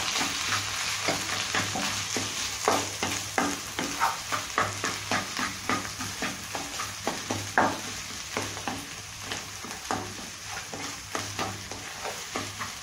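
A wooden spatula mashing and stirring thick, cooking pav bhaji vegetables in a non-stick kadai, making quick, irregular scraping and tapping strokes against the pan over a steady sizzle.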